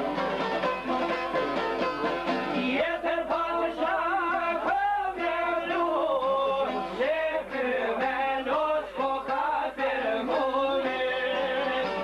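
Albanian folk song played on çifteli, the two-stringed plucked lute, with a man's heavily ornamented singing entering about three seconds in, wavering and trilling over the strings, then dropping out near the end while the strings play on.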